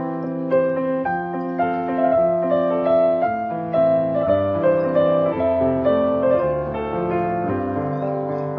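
Background piano music, with several notes sounding together and changing about every half second.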